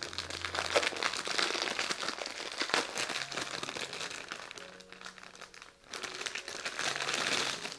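Clear plastic bag crinkling and rustling in the hands as the packed strips of diamond-painting drills are pulled out of it, easing off briefly about six seconds in.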